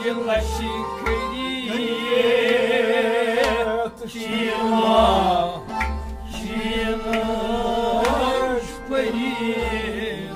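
Kashmiri folk music: a man singing long, wavering held notes over a harmonium, with a bowed string instrument accompanying.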